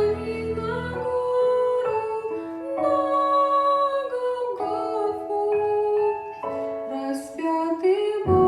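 Slow, gentle music: a melody of long held notes over soft keyboard accompaniment. The bass drops out about a second in and comes back near the end.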